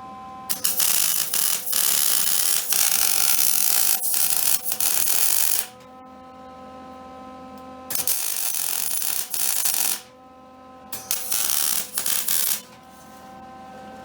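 Electric arc welding on a steel ATV frame: three welding passes of steady crackling sizzle, the first about five seconds long and the next two about two seconds each, each sputtering briefly as the arc strikes. A steady hum carries on in the pauses between welds.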